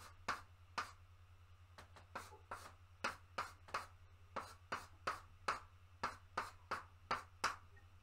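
Chalk drawing on a blackboard: short, quick strokes, about two a second.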